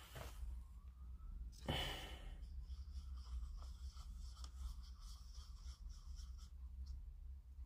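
Quiet room with a low steady hum, and a single breath out close to the microphone about two seconds in, plus a few faint ticks of small handling.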